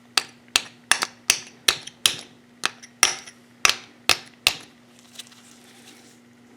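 Hammer tapping on a seized oil pump to knock a part loose: about a dozen sharp metallic taps, two or three a second, stopping about four and a half seconds in.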